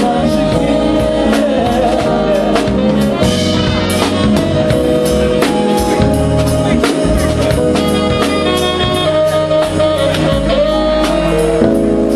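Live band playing a song: drum kit keeping a steady beat under bass and keyboards, with a voice singing.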